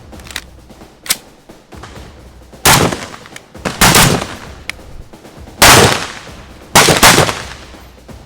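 Rifle shots on a range during zeroing: five or six loud sharp shots at uneven intervals, two of them close together near the end, each trailing off in echo, with a few fainter shots between.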